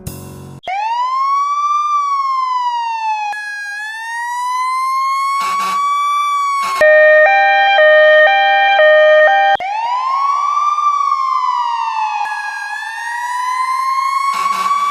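Emergency vehicle siren sound effects: a slow wail rising and falling in pitch, cut to a loud two-tone hi-lo siren stepping between two notes for about three seconds, then back to a rising and falling wail.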